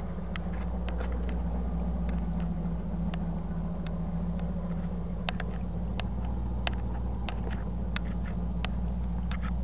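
1984 Chevrolet Camaro Z28's 305 H.O. V8 idling steadily through its stock exhaust, a little louder from about a second in, with scattered light clicks over the engine note.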